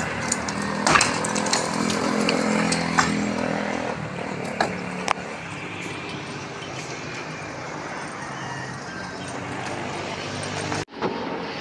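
A small motor runs steadily, louder for the first few seconds and then fainter, with a few sharp knocks scattered through it.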